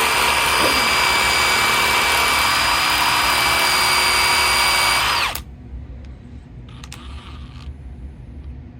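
Power drill running at steady speed, spinning a rusty spark plug socket while steel wool is pressed inside to scour it: a loud, even whine with a scrubbing hiss that cuts off suddenly about five seconds in.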